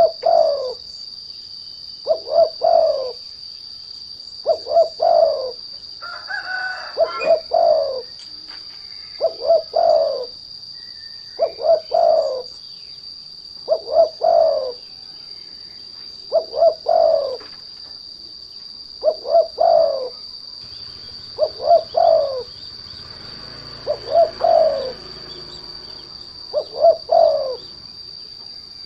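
Spotted dove (derkuku) cooing a short phrase of a few low notes, repeated about every two and a half seconds, over a steady high insect drone. It is a lure song of the kind used to provoke other doves into calling.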